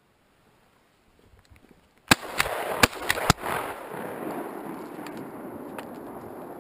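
Shotgun fired at a passing duck: a few sharp blasts in quick succession about two seconds in, followed by a noisy haze that slowly fades.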